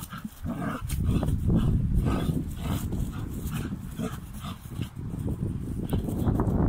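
Belgian Malinois dogs vocalising in a run of short, repeated sounds while tussling over a rubber tyre.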